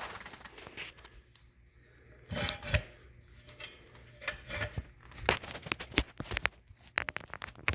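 Handling noise as a camera is moved and set in place: scattered clicks, knocks and short rustles, with a louder scraping rustle about two and a half seconds in.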